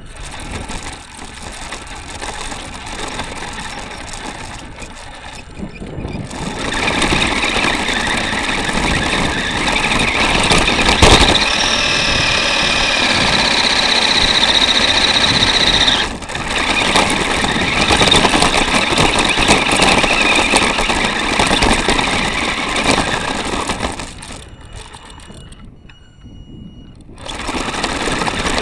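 Onboard sound of a 4x4 electric RC car driving over a sandy, stony beach: its motor and gearbox whine while the wheels and body shell rattle. There is a sharp knock partway through, and the noise drops away twice as the car slows, then picks up again.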